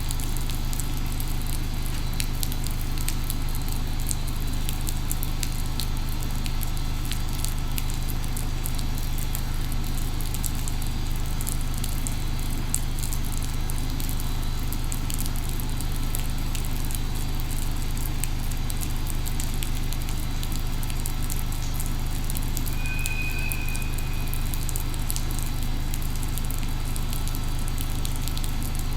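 Steady low electric hum of a JR Freight EH500 electric locomotive standing ready before departure, with a constant fine crackle over it. A brief high tone sounds about two-thirds of the way through.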